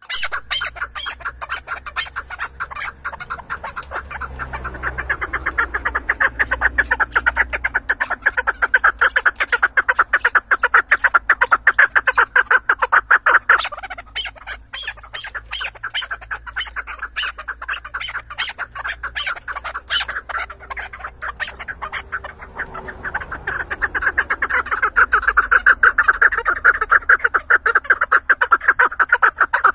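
Chukar partridge calling: a fast, unbroken run of clucking notes that eases about halfway through and grows louder again near the end.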